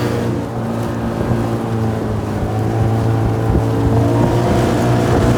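1978 GameFisher 15 hp outboard motor, built by Eska, running steadily under way as the boat turns around. Its note shifts slightly higher about four seconds in.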